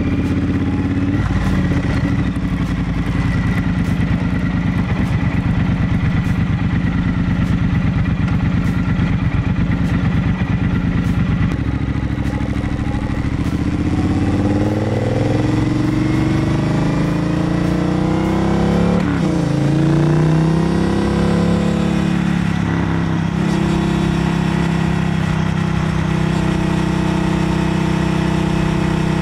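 Triumph Bonneville Bobber Black's parallel-twin engine running through a full exhaust. It pulls along at low, steady revs at first, then from about halfway in it accelerates up through the gears, the pitch rising and dropping at each upshift, and settles into a steady cruise near the end.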